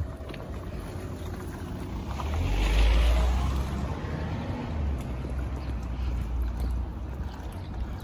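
A motor vehicle passing on the street: its noise swells to a peak about three seconds in and then fades, leaving a low rumble that dies away near the end.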